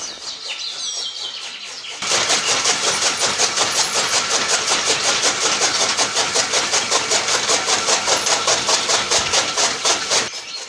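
A small engine or motor starts abruptly about two seconds in and runs with a fast, even pulsing beat.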